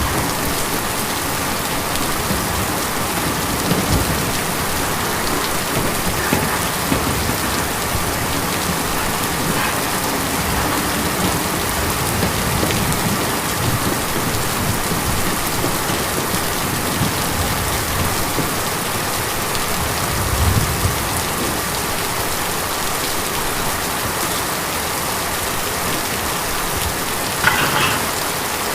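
Steady rain falling on a tin roof, with a few louder drops standing out now and then.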